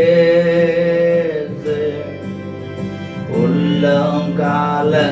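Tamil Christian worship song: a singer holds a long note at the end of a line over a steady keyboard accompaniment, then begins the next line near the end.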